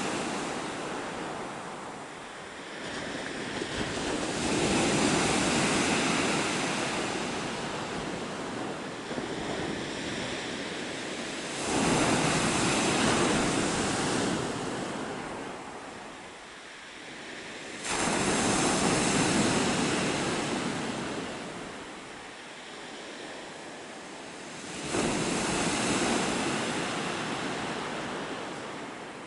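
Sea waves breaking on a pebble (shingle) beach. Four breakers land about every six to seven seconds, each a sudden surge of wash that fades away slowly.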